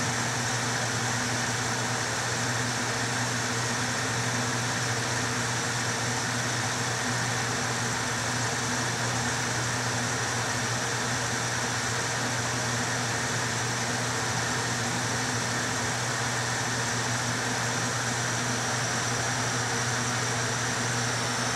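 Bathroom exhaust fan running steadily, a constant airy whir with a low hum, drawing air through 3-inch foil dryer duct.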